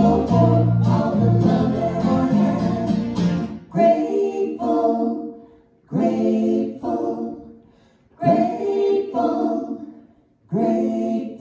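Live worship song with singers, acoustic guitar and bass guitar; about four seconds in the bass drops out and the singers carry on largely unaccompanied in four short sung phrases with brief pauses between them, as the song winds down.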